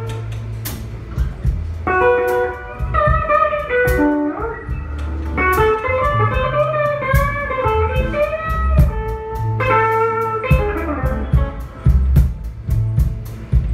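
Live blues band playing an instrumental passage: an electric guitar plays a lead line with bent notes over bass guitar and a drum kit.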